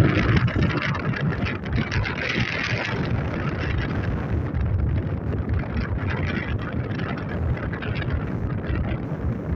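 Wind buffeting the microphone: a steady, gusty rumbling noise, with more hiss during the first three seconds.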